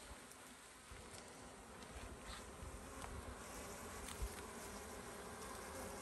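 A cluster of honeybees buzzing on a wild comb held close, a steady faint hum, with a low knock about four seconds in.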